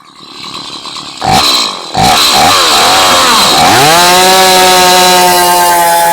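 Two-stroke gas chainsaw revving: its pitch swings up and down a few times, then it is held at a steady high speed from about four seconds in.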